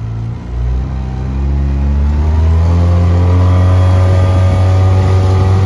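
Outboard motor driving a small aluminum fishing boat, speeding up over the first two to three seconds and then holding steady at running speed.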